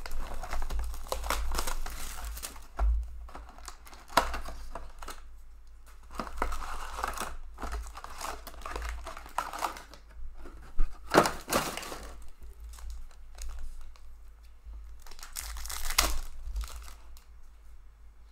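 Plastic shrink wrap crinkling and tearing as it is pulled off a sealed hockey card box, then the cardboard box being opened and its wrapped packs rustling, in irregular bursts with a few sharper, louder crackles.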